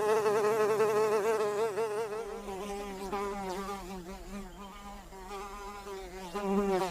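Fly buzzing in flight, a wavering drone whose pitch keeps wobbling. It fades as the fly moves away, then grows louder again near the end as it passes close.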